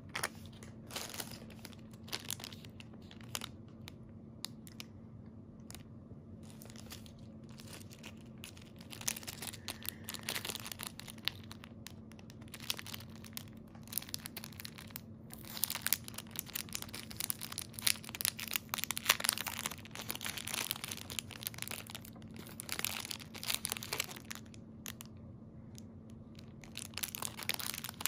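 Clear plastic jewelry packaging bags crinkling as hands handle and open them, in irregular spells of crackling that get busier from about nine seconds in. A faint steady low hum runs underneath.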